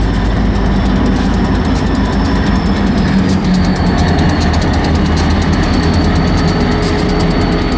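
Diesel locomotive engine running at a low, steady idle-like rumble as a freight train moves slowly past. From about three seconds in, a fast, even clicking and a thin high tone join it.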